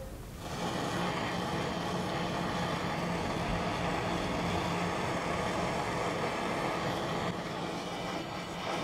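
Handheld gas blowtorch flame hissing steadily against a brass spoon blank, starting abruptly about half a second in.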